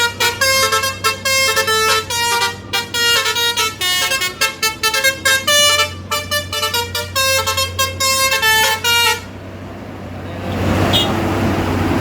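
Truck's telolet 'basuri' multi-tone musical horn playing a fast tune of short, bright notes. It stops about nine seconds in, and a louder rushing noise builds near the end.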